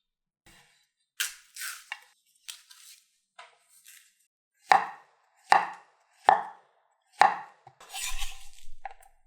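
Knife slicing fruit on a cutting board: light scrapes and handling, then four sharp, evenly spaced chops a little under a second apart, and a short scrape of the blade across the board near the end.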